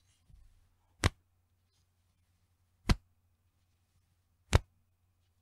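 A bra's elastic band snapped three times, each a sharp 'petin' slap, about one every 1.7 to 1.8 seconds.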